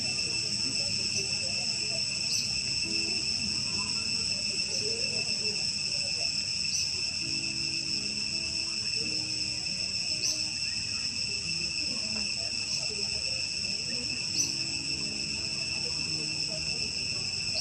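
Steady, high-pitched chorus of insects holding several fixed tones, with a faint short chirp now and then.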